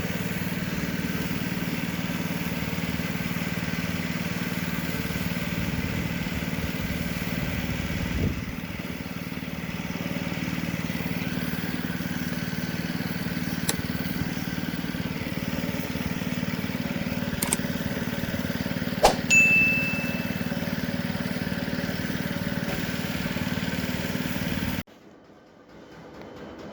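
A machine runs with a steady low hum. A few sharp clicks break in, and about two-thirds of the way through there is a metallic clink with a brief ringing tone. The hum cuts off suddenly near the end.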